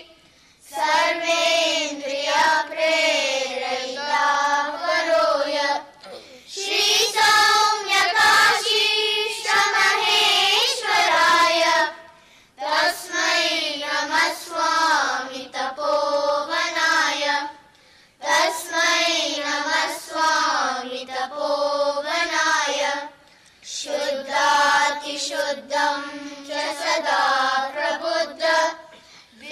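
A group of children singing a devotional chant in unison into microphones, in phrases of about five to six seconds with brief pauses between them.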